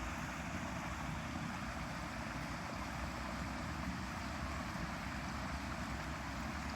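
Water running steadily along a shallow park stream channel, an even rushing noise with no breaks.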